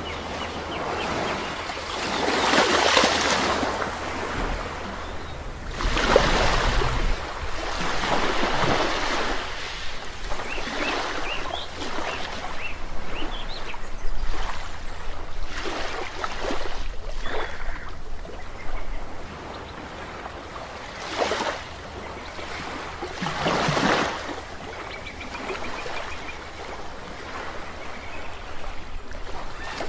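Sea waves breaking and washing up on a shore, in irregular surges every few seconds, with faint short bird chirps between them.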